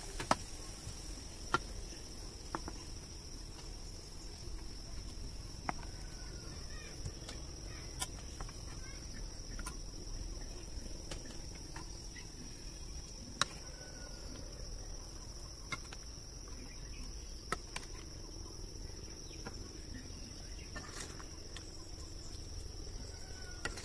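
A steady high-pitched insect drone, like crickets, with a dozen or so sharp clicks scattered through it and a few faint short chirps.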